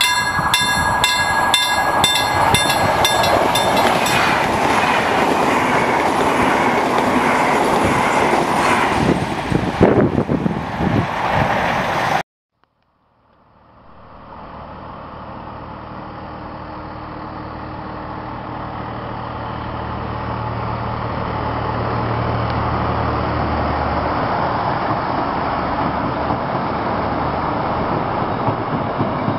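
A VR Pendolino electric tilting train passing at speed: loud rushing noise with steady high whining tones, cut off suddenly about twelve seconds in. After a second of silence, a VR Dv12 diesel locomotive draws in along a station platform, its deep engine rumble growing gradually louder as it nears.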